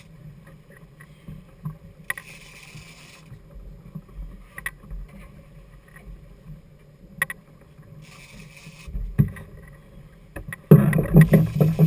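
Boat's twin outboard motors running with a steady low hum while a big-game rod is pumped and the reel wound, with scattered clicks and two short hissing rushes. A much louder rumble starts near the end.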